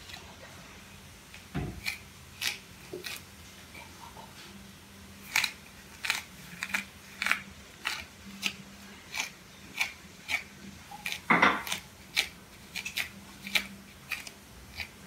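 A comb dragged through thick, coily natural hair, each stroke a short scratchy rasp. The strokes come sparsely at first, then about two to three a second from about five seconds in.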